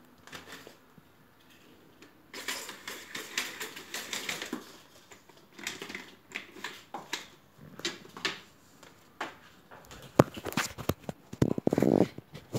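Handling noise from a phone camera being moved about: rustling with scattered sharp clicks. In the last few seconds it turns into a denser, louder run of clicks and knocks.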